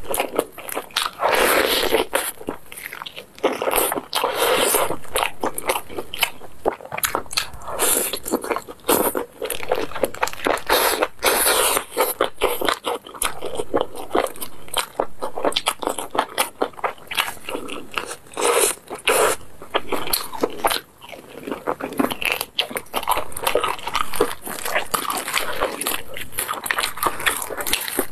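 Crisp fried chicken crust crackling and crunching close to the microphone as it is torn apart by hand and chewed, a dense run of crisp cracks throughout.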